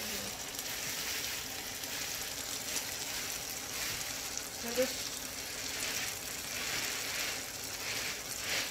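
Eggs with sausage, peppers and tomato frying in a skillet: a steady sizzling hiss that swells and eases, with one brief voice-like sound about five seconds in.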